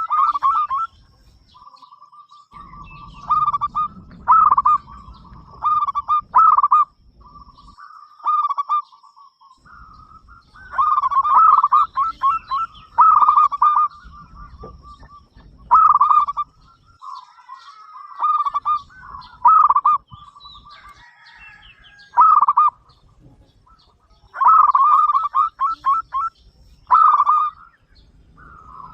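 Zebra dove cooing: repeated bouts of its rolling coo, each a quick cluster of notes, with a steady purring trill between some bouts.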